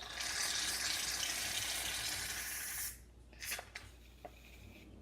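Aerosol can of shaving foam hissing as foam is sprayed out for about three seconds, then stopping. A few short light clicks follow.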